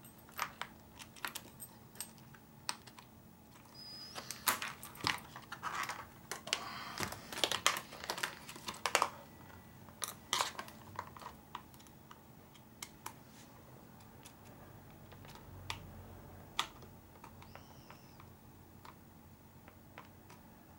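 Irregular small clicks and taps of hard plastic and metal RC buggy parts and a tool being handled and fitted together, while a part is being forced into place that will not go in. The clicks come thick and fast for the first half, then thin out to occasional taps.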